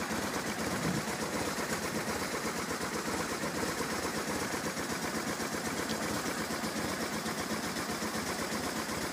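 BMW R1100 RT's 1085 cc boxer twin idling steadily, a fast even mechanical beat with no change in revs. The engine has some 123,000 miles on it.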